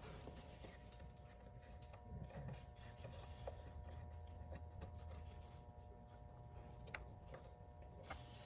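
Faint handling noises as an electrical connector is pushed onto an ATV shift motor, with small ticks and rubbing and one sharp click about seven seconds in, over a faint steady hum.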